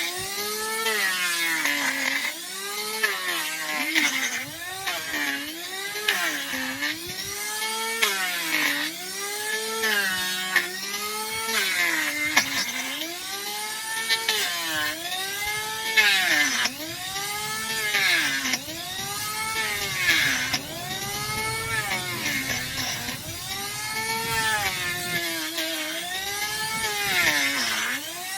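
Handheld electric power tool grinding down a donkey's hoof, its motor whine dropping in pitch each time it bites into the hoof and rising again as it eases off, over and over every second or two.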